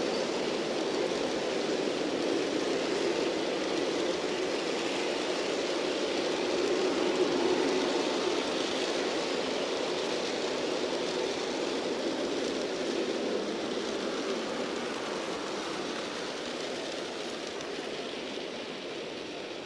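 G scale model freight cars rolling past on garden railway track, a steady rumble of wheels on rails. It fades gradually near the end as the last cars and the caboose go by.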